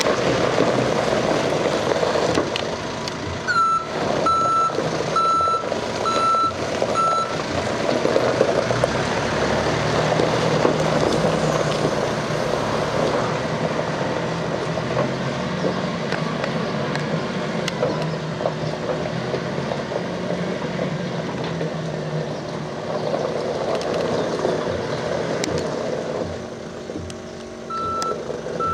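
Caterpillar TH407 telehandler's diesel engine running and revving as it manoeuvres, with its reversing alarm beeping about six times starting about three and a half seconds in, and again near the end.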